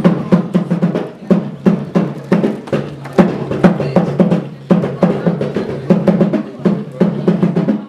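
Drumming: a fast, steady rhythm of drum strokes, several a second, with deeper pitched beats running under sharper slaps.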